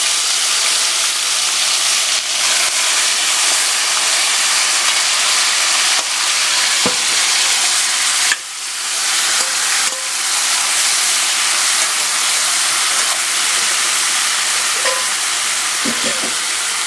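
Meat sizzling steadily as it fries in a hot pot, browning in a little sugar. The sizzle drops briefly about eight seconds in.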